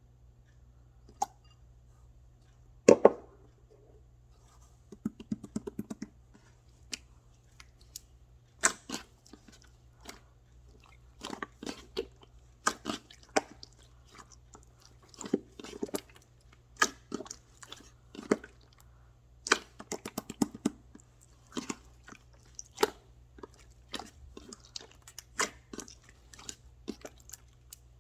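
Something crunchy being bitten and chewed: irregular sharp crunches, often in quick clusters, with the loudest pair about three seconds in, over a steady low hum.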